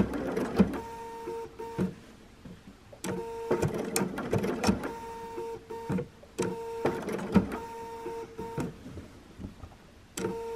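Sewing machine stitching a blanket stitch around a raw-edge appliqué piece, running in several short bursts of a second or two with brief stops between them, its motor hum accompanied by the clicking of the needle mechanism.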